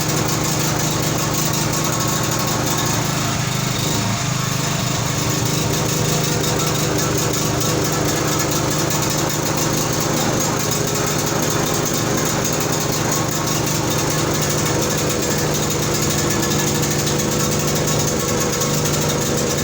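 A 5 kVA generator engine running on biogas, at a steady, unchanging speed.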